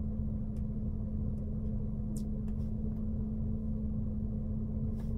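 Steady low rumble with a constant hum in a car's cabin, with a few faint short clicks scattered through.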